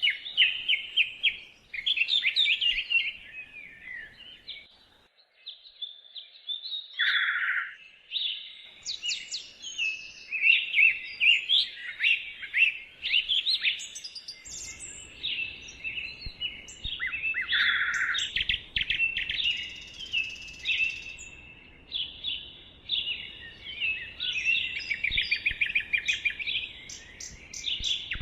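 Several songbirds singing in a dense chorus of quick chirps and trills, with a lower, shorter call heard twice.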